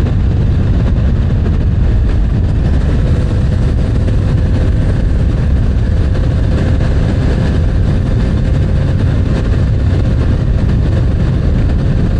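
Yamaha MT-09 motorcycle's three-cylinder engine running steadily at cruising speed, with a constant rumble of engine, road and wind noise at the helmet camera and a faint steady tone that holds one pitch through most of the stretch.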